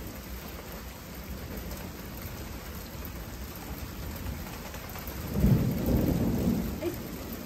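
Steady rain falling on pavement, with a low rumble of thunder breaking in about five seconds in and rolling for about a second and a half, the loudest sound here.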